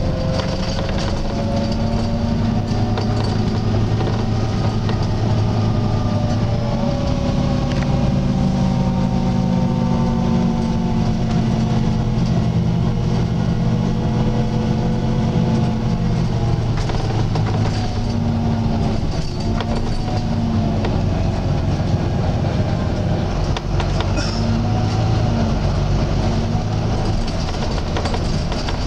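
Volvo B9TL double-decker bus heard on board while driving: its six-cylinder diesel engine and drivetrain run steadily, the engine note shifting with gear and speed, with a step up about seven seconds in. Above it a fainter higher tone slowly rises and falls, the slight groaning noise the bus is known for.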